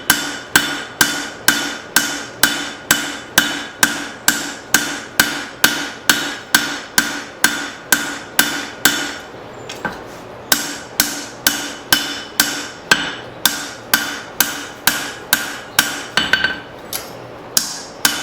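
Hammer blows on hot leaf spring steel on an anvil, forging the front of a knife blade: a steady rhythm of about two strikes a second, each with a short metallic ring. The blows pause briefly about halfway through.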